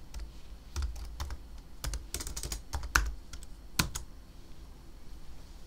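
Keystrokes on a computer keyboard: a scattering of short clicks in small clusters over the first four seconds, then stopping.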